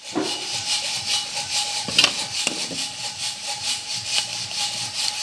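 Rhythmic rasping and rattling from electric-motor rewinding work, about four to five strokes a second, over a faint steady whine.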